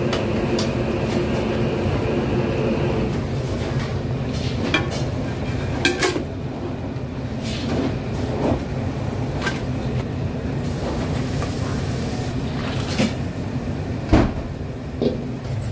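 Commercial kitchen noise: a steady low rumble of burners or extraction, with scattered sharp clanks and knocks of metal cookware and a brief hiss about two-thirds of the way through.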